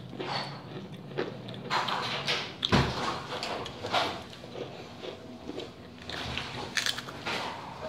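Biting and chewing Pringles cheese potato crisps: an irregular series of sharp, dry crunches.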